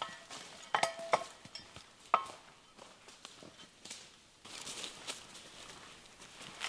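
Footsteps through dry forest leaf litter, with a few sharp clicks and short clinks about one and two seconds in, and soft rustling later on.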